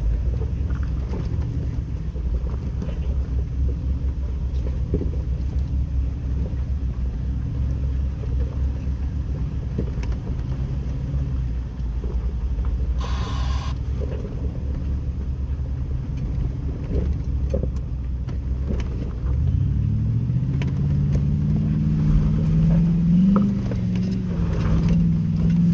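Jeep Wrangler engine running at low speed with a steady low rumble, crawling up a rocky hill; about three-quarters of the way through it revs up, its pitch rising and wavering under load.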